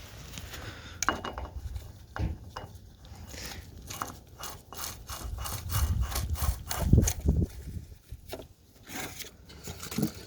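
Spin-on automotive oil filter being turned by hand onto a lawn mower engine's filter mount: repeated irregular scraping and rubbing strokes with a few sharp clicks as the hand grips and twists the canister.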